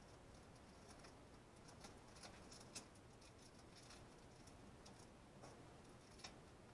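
Near silence: room tone with faint, irregular light clicks, about eight in all, the most noticeable nearly three seconds in and another near the end.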